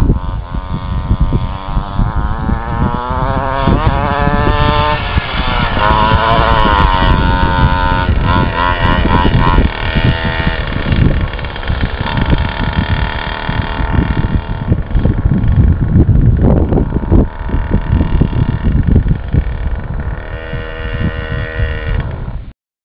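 Small two-stroke pocket-quad engine of a radio-controlled trophy truck revving up and down as the truck makes speed runs, its pitch rising and falling again and again; it cuts off suddenly near the end. The owner believes a poor exhaust keeps the engine from reaching its full revs.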